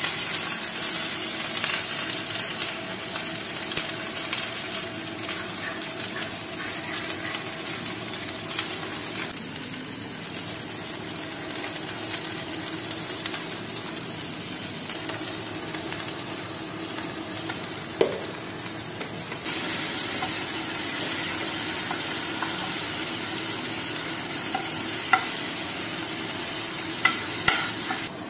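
Food sizzling steadily as it fries in hot oil in a nonstick frying pan, stirred and turned with a steel spoon. A few sharp clicks of the spoon against the pan near the end.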